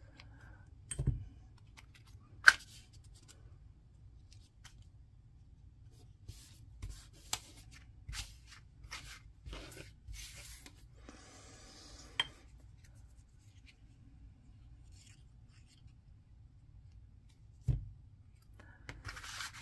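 Cardstock pieces being handled and glued by hand: scattered paper rustles, small scrapes and clicks, with one sharp click about two seconds in and a longer rustling scrape around the middle. Two soft low thumps, one near the start and one near the end, as the pieces are pressed against the table.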